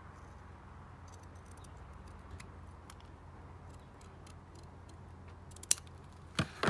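Scissors trimming a narrow strip of corrugated cardboard: faint scattered snips and clicks, then two sharper clicks near the end.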